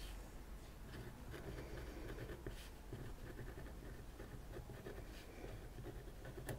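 Broad-nib Kaweco Sport fountain pen writing on paper: faint, irregular scratching of the steel nib in short strokes. The slight feedback comes from the textured desk under the paper, which is normal.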